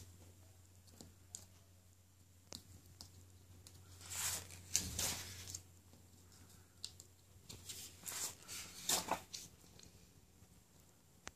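Paper posters being handled and turned over, rustling in a few short bursts, the longest about four seconds in and more around eight to nine seconds, with a low steady hum beneath.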